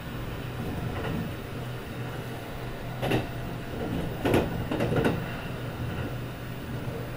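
Kintetsu 22000 series ACE electric train running, heard from the car's end deck: steady running noise with a low hum. A few sharp knocks come between about three and five seconds in.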